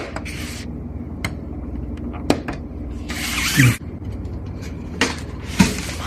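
Plastic back cover of a portable screen being pried open with a blade: sharp clicks as the snap clips let go, and a few scraping strokes of blade on plastic, the longest about three seconds in.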